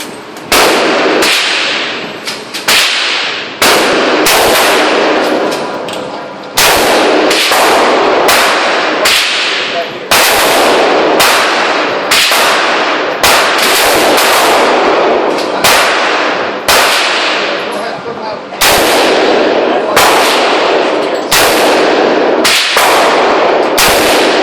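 AR-15 rifle shots fired singly at an irregular pace, roughly one every one to two seconds, each crack followed by a long echoing tail in the range.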